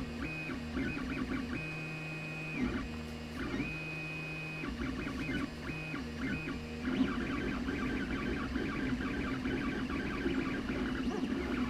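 3D printer's stepper motors whining at shifting pitches as the print head moves, with a few longer held tones in the first half and a quicker, busier chatter of changing tones from about seven seconds in.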